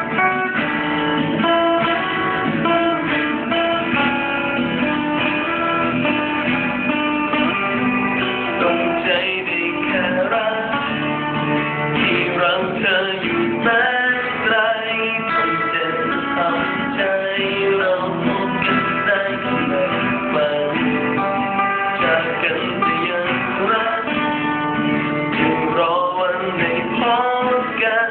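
Instrumental break in a pop-rock band song, with guitar leading over the band.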